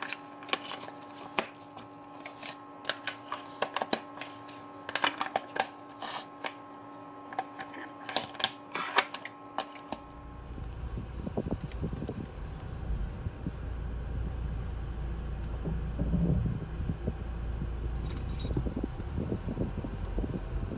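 Glass food-storage containers with plastic lids knocking and clicking on a stone countertop as they are closed and stacked, over a faint steady hum. About halfway through this gives way to the steady low rumble of a car's interior.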